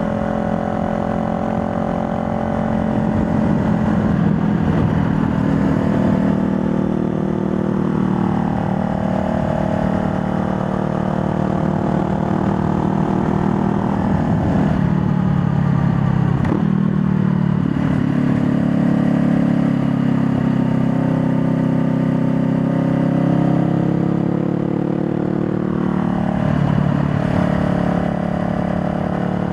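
Honda Rebel 500's parallel-twin engine running under way, its note rising and falling with the throttle and shifting in pitch a few times.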